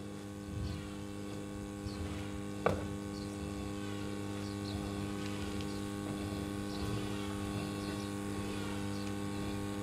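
Steady electrical mains hum from the sound system, with a few faint ticks and one sharp click about two and a half seconds in.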